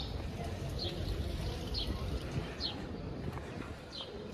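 A bird chirping: short, high, falling chirps about once a second, over a steady low background rumble.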